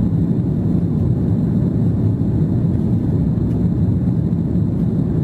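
Steady low rumble of a jet airliner in flight, heard inside the cabin at a window seat over the wing, with the flaps extended.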